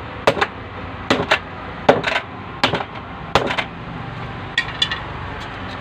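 A wooden stick repeatedly whacking an electric hot water bag: sharp smacks, mostly in quick pairs, about six pairs in the first three and a half seconds, then two lighter hits near the end.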